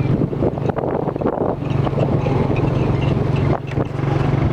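Engine of a moving vehicle running steadily as it drives, with gusts of wind buffeting the microphone.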